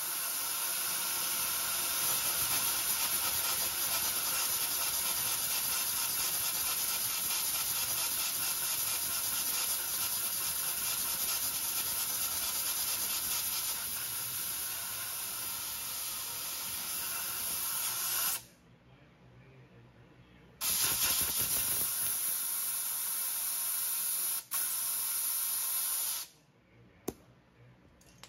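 Welding arc hissing steadily on a seized stud, in two long runs separated by a pause of about two seconds, with a short break in the second run. It cuts off near the end.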